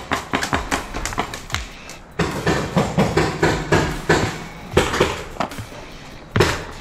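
Paintball markers firing: a series of sharp pops, with a quick string of several shots a second in the middle and single shots near the end.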